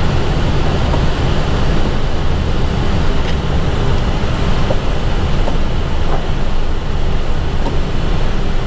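Steady cockpit noise of an Airbus A320 taxiing after landing: a dense low rumble of engines and airflow with a faint steady high tone above it.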